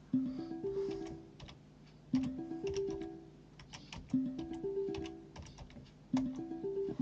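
Background music: a short phrase of a few rising notes, repeated about every two seconds, with light clicks between the notes.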